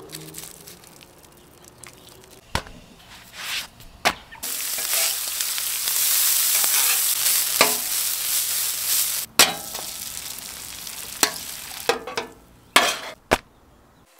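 Shredded hash browns frying on a Blackstone flat-top griddle: a steady sizzle, loudest for about five seconds in the middle. Sharp scrapes and taps of a steel spatula on the griddle top come several times.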